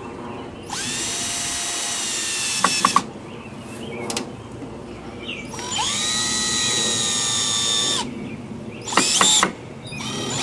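Power drill driving screws into wood: two steady runs of about two seconds each, the motor pitch rising as it spins up, with a few sharp clicks as the first screw seats, then shorter bursts near the end.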